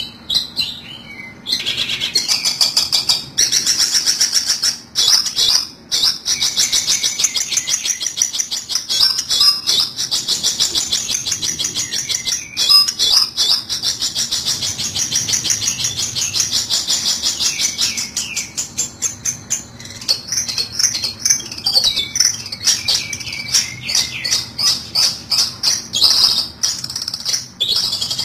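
Long-tailed shrike (cendet) lure call: fast, high-pitched chattering chirps repeated many times a second, with only a few brief breaks, used to draw shrikes in for trapping.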